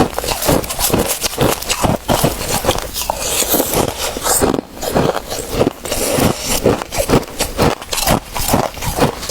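Close-up crunching of crushed ice being bitten and chewed: rapid, irregular crackling crunches, several a second.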